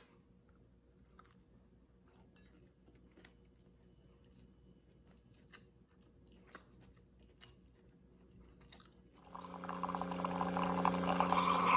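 Faint, soft chewing of a bite of cinnamon roll, with small mouth clicks now and then. About nine seconds in, a single-serve coffee maker starts brewing: its pump hums steadily and hot coffee streams into a mug, growing louder.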